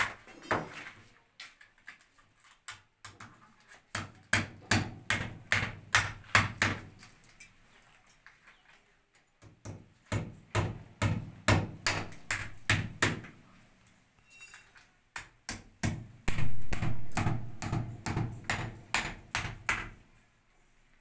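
Hammer blows on brickwork around a conduit and switch box, in several runs of quick strikes about three a second.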